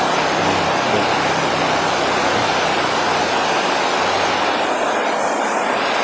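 Steady, even rushing noise at a constant level, with no separate knocks or tones standing out.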